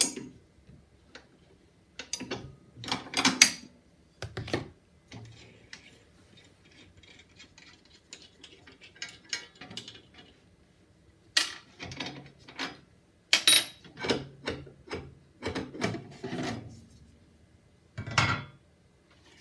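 Metal clinks, clicks and knocks of a table saw blade and its arbor fittings being taken off by hand and set down, in irregular clusters with short pauses between.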